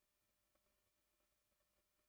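Near silence: digital silence with no audible sound.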